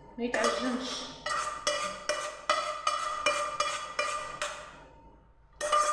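Metal spoon repeatedly striking a metal pot or tray while scooping cooked rice, about a dozen ringing clinks at roughly three a second, stopping near the end.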